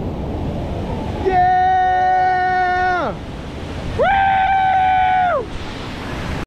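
Rushing whitewater of a river rapid, with two long, high-pitched yells held on one note, one about a second in and one about four seconds in. Each yell falls away in pitch at its end.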